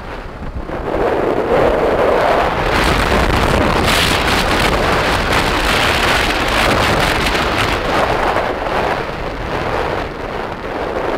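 Wind rushing over a phone's microphone on a moving motorbike: a loud, steady roar of noise that swells about a second in and eases near the end.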